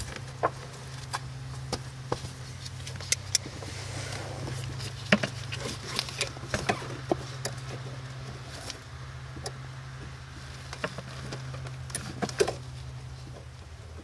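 Irregular small clicks and taps of pliers working at the plastic retaining clip on a Miata's hood release cable, trying to free it from its mount, over a steady low hum. The clicks bunch together in the middle of the stretch and again near the end.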